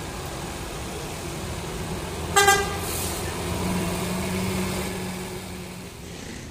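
A vehicle horn gives one short, loud honk about two and a half seconds in, over the steady running of a bus engine; a low steady drone follows for a couple of seconds after the honk.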